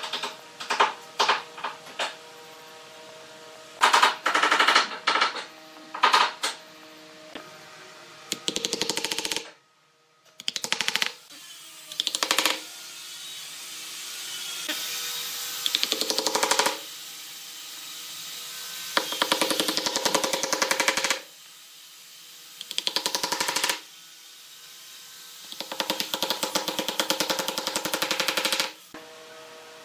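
Runs of rapid knocking, each a second or two long with pauses between, as a mallet taps end-grain wood discs down into glued holes in a pine tabletop.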